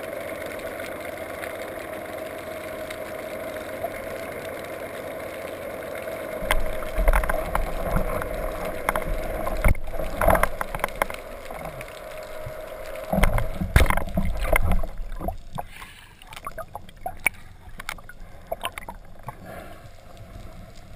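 Underwater audio from a speargun-mounted camera. A steady drone runs for about the first dozen seconds and then stops. Loud low rushing of water and knocks from handling start about six seconds in and peak again around thirteen to fifteen seconds, followed by scattered clicks.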